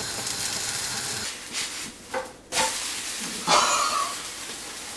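Pancake batter sizzling in a hot frying pan, a steady hiss that breaks up after about a second, with a few short louder sounds after that as the pan is handled.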